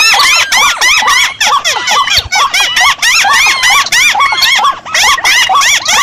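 Recorded lure calls of several paddy-field birds mixed together, with rails, crakes and waterhens among them. It is a dense, unbroken run of quick, squeaky arched notes, several calls overlapping, played as a bird-calling lure to draw game birds.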